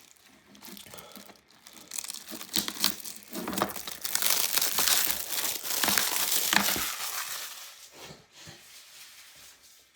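Plastic shrink wrap on a DVD case crinkling and tearing as it is peeled off, a dense crackle with small clicks, loudest in the middle and fading near the end.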